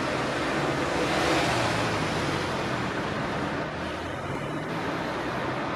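A motor vehicle passing on the street, loudest about a second in, its engine hum fading after about four and a half seconds, over steady road traffic noise.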